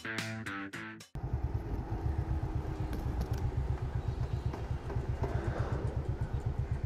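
Guitar music cuts off about a second in, and a motorcycle engine runs on with a steady, rapid low pulse.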